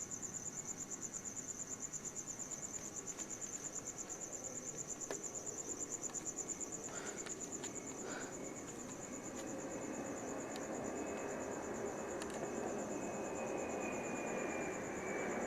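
Crickets chirping in a steady, fast pulsing trill while a DHL cargo jet approaches overhead. The jet's rumble grows from about halfway through, and near the end a high engine whine slowly falls in pitch.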